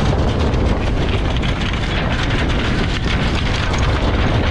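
Strong wind buffeting the microphone aboard a sailing yacht under sail in rough sea: a loud, steady rumble with a fluttering low end.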